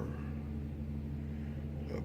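Steady low background hum with no other event.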